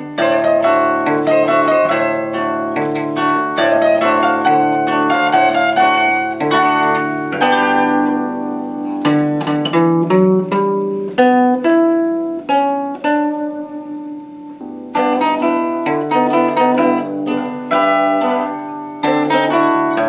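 Concert zither played solo: a melody plucked with a thumb pick on the fretted strings over plucked bass and chord accompaniment on the open strings. About two-thirds of the way through, the playing thins out and softens briefly, then picks up again fuller.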